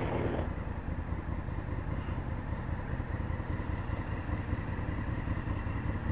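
Motorcycle engine running steadily at low revs, a low rumble, as the bike creeps along.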